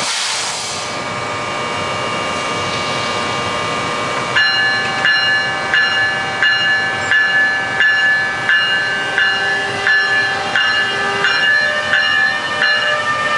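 Steady hiss and whine from a Bombardier ALP-46A electric locomotive standing by. From about four seconds in, a bell rings steadily, about one and a half strokes a second, as the locomotive starts to pull away.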